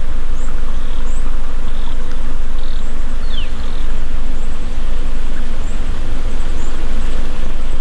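A loud, steady buzzing hum, with a few short, high bird chirps over it.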